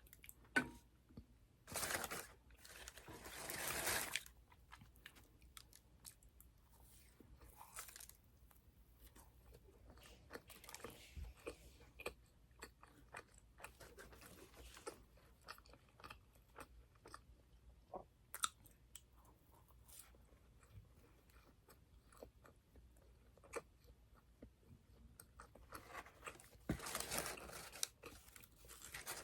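Close-up sounds of a person biting and chewing donuts: soft wet chewing with many small mouth clicks, and a few louder spells of crackly noise about two and three seconds in and again near the end.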